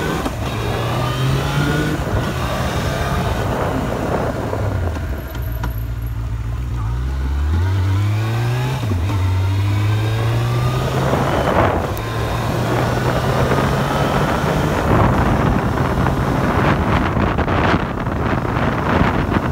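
Vehicle engine accelerating along a street: its pitch climbs, drops back at each gear change and climbs again, then holds steady while cruising, with road and wind noise throughout.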